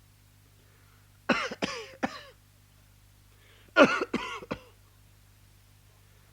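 A man coughing in two short fits, each of three quick coughs, a couple of seconds apart.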